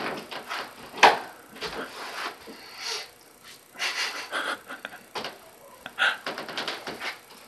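A person moving about a small room: scattered short knocks and scuffs with breathy rustling, a sharp knock about a second in the loudest.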